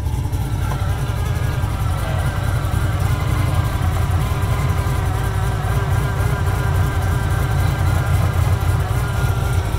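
Supercharged 416-cubic-inch LT-1 V8 of a 2019 Yenko/SC Stage II Camaro idling steadily after a cold start, with a deep rumble. A steady higher whine joins in about half a second in.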